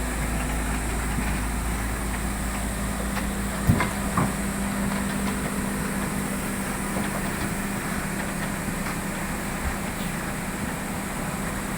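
Excavator's diesel engine running steadily, with two sharp knocks about four seconds in, half a second apart.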